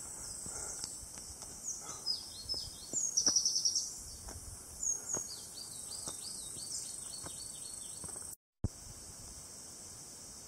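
Small forest birds chirping in short, high, quick phrases over a steady high insect drone, with soft footsteps on a dirt trail about every two-thirds of a second. The sound cuts out for a moment about eight seconds in, leaving only faint ambience after.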